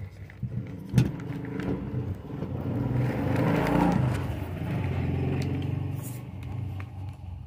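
A vehicle engine running steadily, growing louder through the middle and then easing off, as a vehicle passing by. There is a single sharp knock about a second in.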